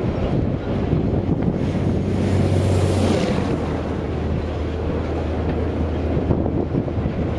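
Train running with a steady low rumble and hum, with wind on the microphone. A rushing hiss swells and fades about two to three seconds in.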